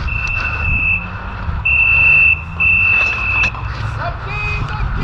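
Electronic buzzer sounding three long, high, steady beeps, each lasting under a second.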